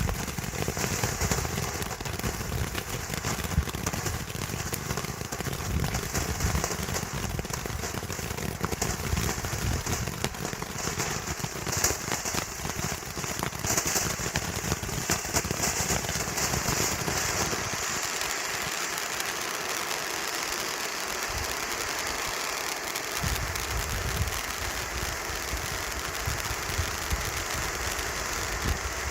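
Standard Fireworks Dragon Fire firework fountain burning: a continuous hissing spray thick with fine crackles, the crackle brightest through the first half or so. A low rumble runs underneath and drops out for a few seconds past the middle.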